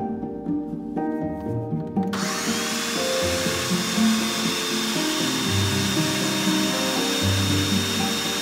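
Ninja countertop blender switched on about two seconds in, its motor spinning up with a brief rising whine and then running steadily at high speed as it purees cooked cauliflower and stock into soup. Background music plays throughout.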